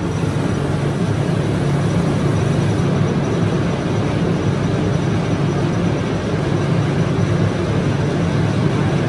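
Diesel-fired brooder heater's electric blower motor running, a steady hum with a rush of air. The burner has not lit: the fan is running with no flame.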